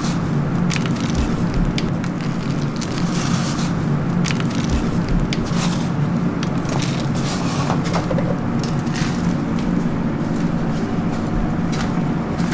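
Steady low hum of commercial kitchen equipment, with scattered light clicks and rustling as sev is sprinkled and foam takeaway boxes are handled.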